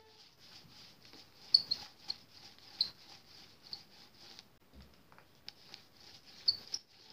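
Paint roller squeaking against a board as paint is rolled on, in short irregular high chirps, with a few sharper clicks and a dull knock near the middle.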